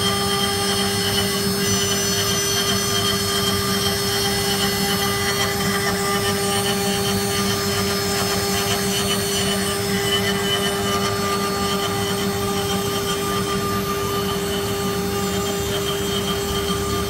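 CNC router spindle running steadily on a rotary-axis job, its bit carving a turning wooden baluster: a constant spindle whine over the rasp of the cut.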